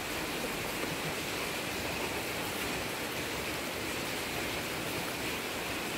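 A steady, even hiss with no distinct events, like rain or running water.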